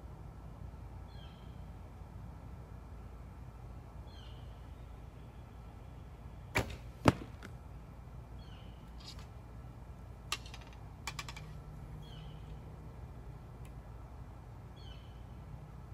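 A shot from a vintage Browning Explorer recurve bow: a sharp snap of the string on release, then about half a second later a louder smack of the arrow hitting the target. A few softer clicks follow, and a bird gives a short chirp every few seconds.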